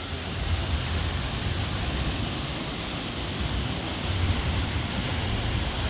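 Sea waves washing and breaking over the rocks below a seawall: a steady surf noise, with a low rumble of wind on the microphone.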